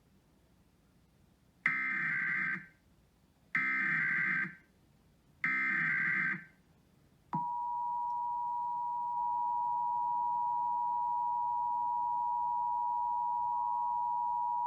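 Emergency Alert System tones opening a statewide Ohio EAS test. First come three short bursts of warbling SAME header data, each about a second long and about two seconds apart. About a second after the last burst, the steady two-tone EAS attention signal begins and holds for several seconds.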